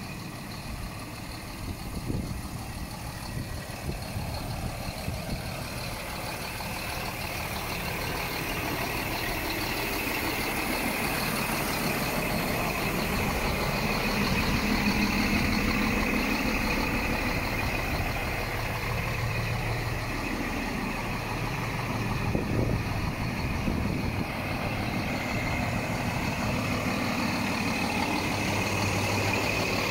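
Scania G420's six-cylinder diesel engine idling steadily, growing louder over the first half.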